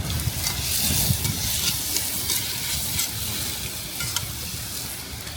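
Chicken sizzling as it cooks over a wood campfire: a steady frying hiss with scattered small pops and crackles.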